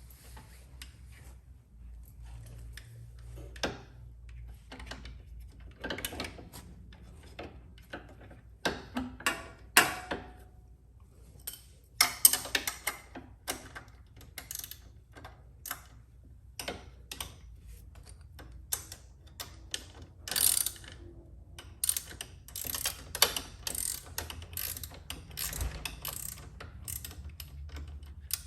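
Hand ratchet wrench clicking in irregular runs as bolts are worked loose, some clicks much louder than others.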